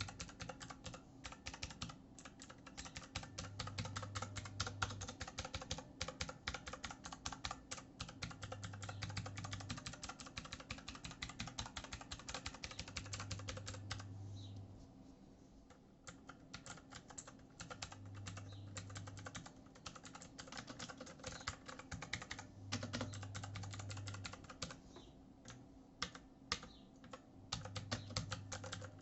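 Fast typing on a Cosmic Byte CB-GK-16 Firefly tenkeyless mechanical keyboard with clicky blue switches: a dense run of key clicks, with a short pause about halfway through.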